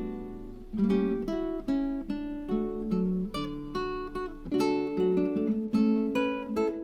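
Background music on acoustic guitar: a run of plucked notes and chords, each ringing and fading before the next.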